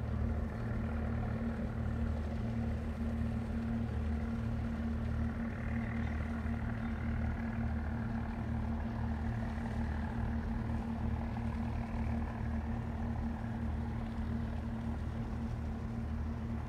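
A boat's engine running steadily: a low drone with a constant hum above it.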